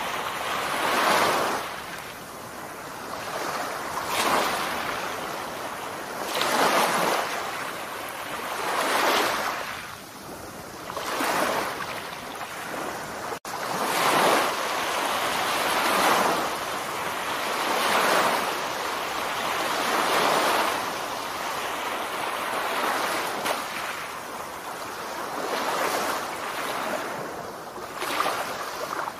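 Surf washing onto a shallow sandy beach, a rush of noise that swells and fades about every two to three seconds.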